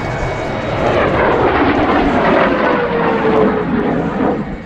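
MiG-17 fighter jet's turbojet in afterburner, passing overhead. The roar swells about a second in, carrying a whine that falls steadily in pitch as the jet goes by, then drops off sharply near the end.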